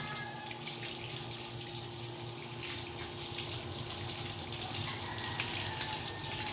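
Water running from a garden hose onto a dog's coat and splashing on the floor while the dog is bathed: a steady hiss. A faint steady hum sits underneath.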